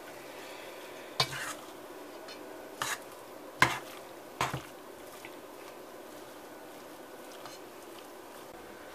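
Metal spoon stirring raw ground-meat meatball mixture in a stainless steel bowl, clinking against the bowl four times in the first half.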